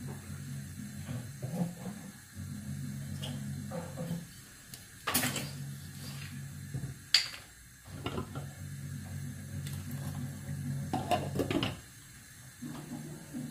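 Glass lid rattling on a saucepan of water heating to the boil on a gas burner, in buzzing spells a second or two long with short pauses between, as steam lifts it. A few sharp clinks, the loudest about seven seconds in.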